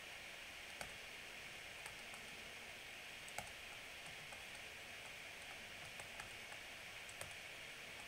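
Faint, scattered clicks of a stylus tapping on a tablet screen while writing, over a steady hiss. The loudest click comes about three and a half seconds in.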